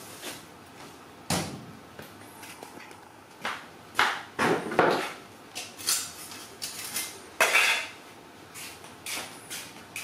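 A toy crocodile knocking and scraping on a concrete floor as a baby macaque handles and chews it: a string of irregular clattering knocks, thickest in the middle stretch.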